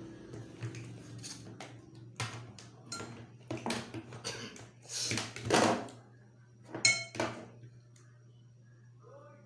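A kitchen knife and a wooden cutting board knock and clatter while needlefish are chopped and the board and knife are shifted about: a string of sharp knocks, loudest about five and a half and seven seconds in, the latter with a brief metallic ring.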